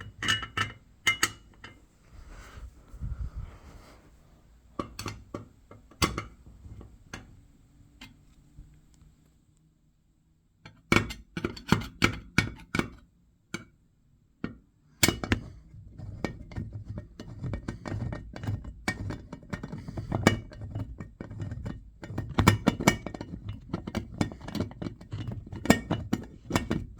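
Scattered clinks, taps and knocks of a screwdriver and small metal parts as a fire alarm pull station is unscrewed from its mounting. The sound drops almost to nothing for about a second near the ten-second mark, then the knocks and rattles come thicker and faster.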